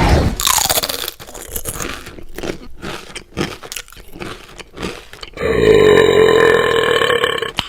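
Cartoon sound effects: a falling swoosh, then a run of irregular crunching, chewing-like clicks, then a loud drawn-out growl-like tone for about two seconds near the end.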